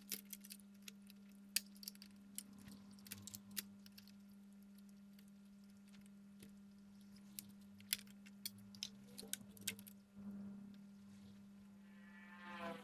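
Scattered clicks and light clatter of cable connectors and a computer motherboard being handled as the board is unplugged and lifted out of its metal chassis, over a steady low hum. A short pitched sound comes near the end.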